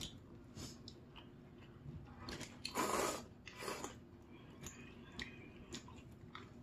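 Quiet eating sounds from a bowl of spicy noodles and rice cakes: scattered light clicks of utensils against the bowl and chewing, with a brief noisy rush about three seconds in and a shorter one just after.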